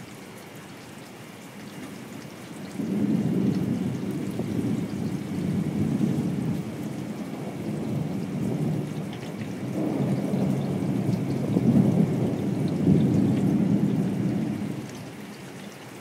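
Long roll of thunder: a low rumble that builds a few seconds in, swells again about two-thirds of the way through and dies away near the end, over a steady wash of rain.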